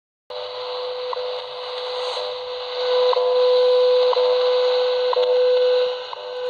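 Tecsun shortwave radio tuned to 10 MHz, receiving a standard time-signal station: a steady tone near 500 Hz with a short tick every second, over static hiss. The radio is silent for a moment at the very start, then the signal comes in, growing louder about halfway through.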